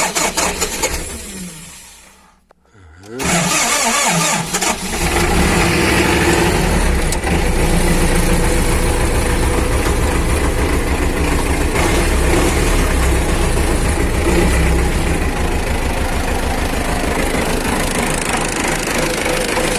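MTZ-80 tractor's four-cylinder diesel engine being started after all four injector nozzles were replaced. A first attempt dies away over about two seconds, then it is cranked again about three seconds in, catches near five seconds and settles into steady running.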